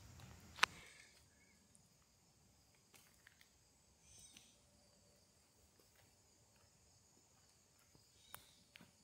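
Quiet woods with a sharp snap about half a second in and a few faint crackles later, from footsteps on leaf litter and twigs.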